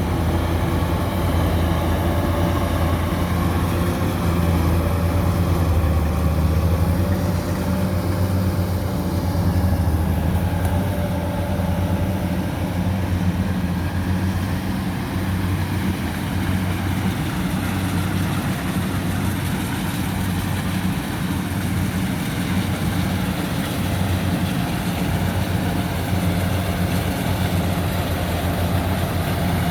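Kubota DC-105X combine harvester running steadily while cutting and threshing rice under load: a continuous low diesel engine drone with machinery noise over it.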